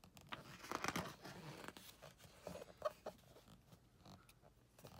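A page of a large book being turned by hand: a paper rustle lasting about a second and a half, then a few softer rustles and light taps.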